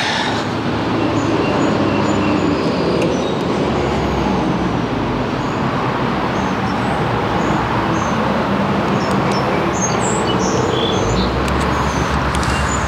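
Steady road traffic noise: a constant rumble and hiss of passing vehicles, with a few faint bird chirps over it.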